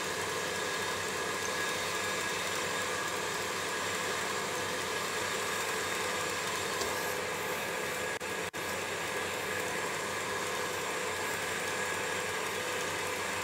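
Electric stand mixer motor running steadily as its whisk whips egg whites for a French meringue, a constant whirring hum that briefly cuts out twice about eight seconds in.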